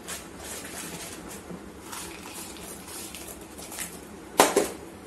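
Light clicks and scrapes of a spatula in a plastic mixing bowl, with one sharp knock about four and a half seconds in as a plastic bowl of crushed biscuits is tipped and knocked against the mixing bowl.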